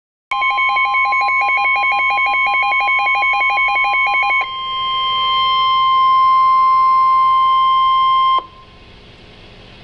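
Emergency alert broadcast tones: a rapid pulsing beep, about ten pulses a second, for about four seconds, then a steady single high tone for about four seconds that cuts off sharply, leaving a faint hiss. This is the attention signal that comes before a weather warning message is read.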